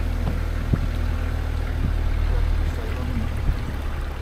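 Vehicle driving slowly through floodwater on a street: a steady low engine and road rumble with water washing around the wheels.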